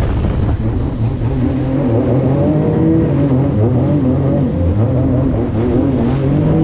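Jet ski engine running at speed, its pitch wavering up and down and then settling to a steady note near the end, over rushing water and wind.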